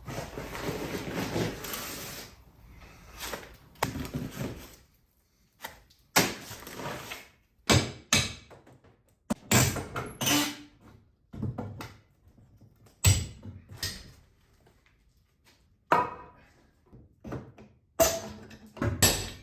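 Hand demolition work: a couple of seconds of rough scraping and rustling, then a string of separate knocks, thuds and clatters every second or so with short silent gaps, as old wood and material are pulled and knocked off the garage framing.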